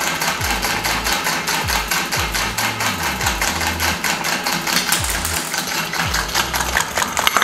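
A working model of a V-type four-stroke engine running, its moving parts making a fast, even mechanical clatter.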